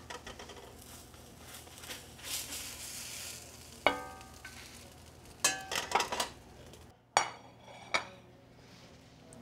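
Blackened halibut sizzling in a hot cast iron skillet as a metal spatula lifts it out, with a sharp metallic clink that rings briefly just before four seconds in and a few more clinks and knocks of the spatula and pan around six seconds. Two short knocks follow near the end.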